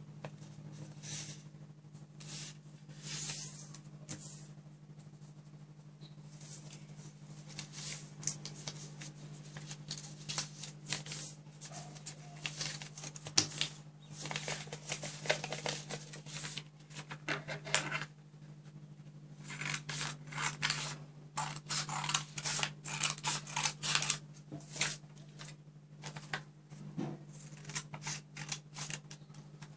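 A sheet of paper being folded, rubbed and creased by hand on a wooden tabletop, rustling, with steel scissors snipping through the folded paper in quick crisp cuts in the second half. A steady low hum runs underneath.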